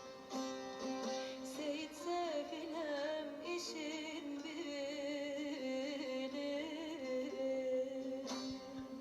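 Background music: a melodic line with wavering, ornamented pitch over a held drone, with plucked string notes and a singing-like voice.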